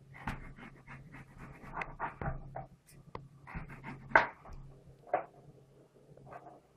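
A kitchen knife slicing a red spring onion on a white plastic cutting board: a run of short crisp cuts and taps of the blade against the board, the loudest about four seconds in, over a low steady hum.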